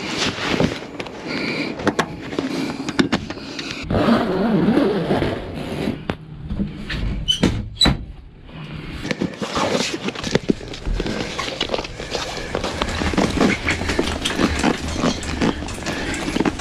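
Pontoon boat enclosure panels being fitted by hand: stiff vinyl and canvas rustling and crinkling, with many sharp clicks and knocks as the snaps are pressed shut.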